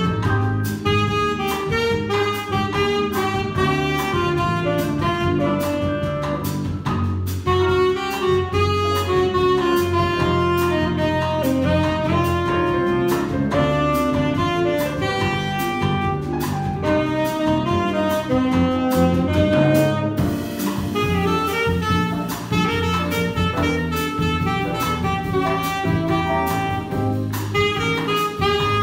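Small jazz combo playing a bossa nova: a saxophone carries a solo melodic line over piano, electric bass, guitar and drums.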